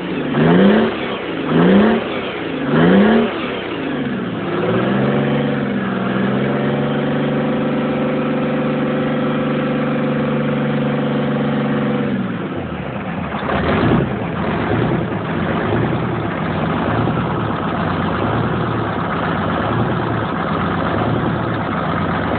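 Freshly rebuilt Detroit Diesel two-stroke engine on its first run, revved in four quick throttle blips. It then climbs to a raised speed and holds it steadily for several seconds, drops back with one more short blip, and settles into idle.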